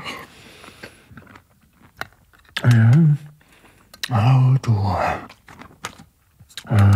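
A man speaking in three short phrases with pauses between them, and sharp clicks and taps in the gaps.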